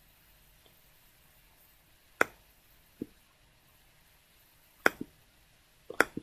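Computer mouse clicks: a single click about two seconds in, another a second later, then a quick double click near five seconds and another close pair near the end.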